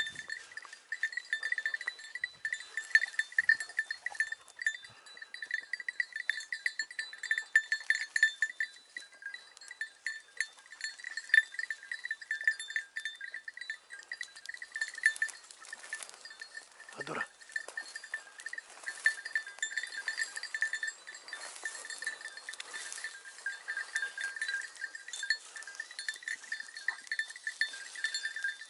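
A small metal bell on a hunting hound's collar jingles in quick, irregular strokes without pause as the dog works through the brush.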